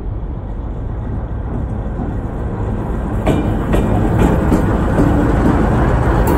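GE C44ACi diesel-electric locomotive approaching and passing close by, its engine's low rumble growing steadily louder. From about three seconds in, sharp clicks from the wheels on the rail come in as the locomotive draws alongside.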